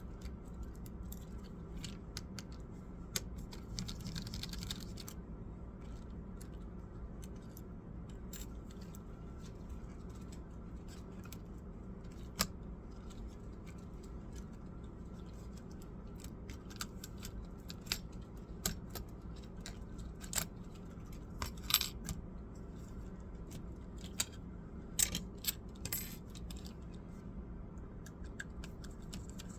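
Scattered small clicks and light metallic taps from handling laptop parts and screws, a few coming in quick clusters, over a steady low hum.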